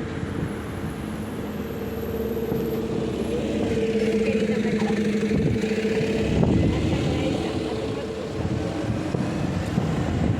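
Fireworks display: a continuous rumble of bursts, with a crackling barrage around the middle.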